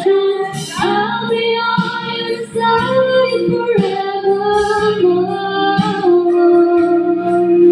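A woman singing into a microphone, her voice sliding between notes and holding a long note near the end.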